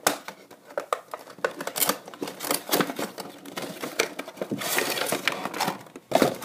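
Cardboard Funko Pop box and its plastic insert being handled and opened: a run of small clicks, taps and plastic rustling, thickest about four and a half seconds in.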